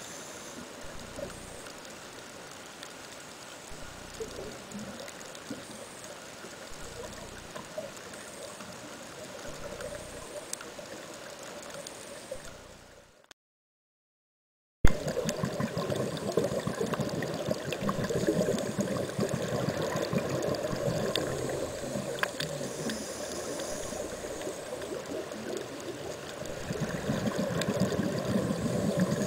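Muffled underwater ambience picked up through the camera's housing: an even watery hiss with light crackling. About halfway through it drops out for a second and a half, then returns louder with dense fine crackling.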